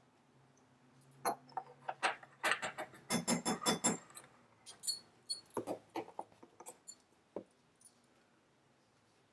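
Metal measuring spoon clicking and scraping against a plastic cocoa tub and a glass mixing bowl while scooping cocoa powder, with a quick run of taps about three seconds in as the spoon is emptied into the bowl.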